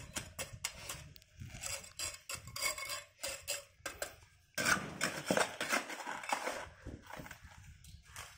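Small steel trowel scraping and tapping wet cement mortar around gate-stopper pipes in a concrete floor, packing and smoothing the fill: a run of irregular scrapes and light knocks, busiest for a couple of seconds just past the middle.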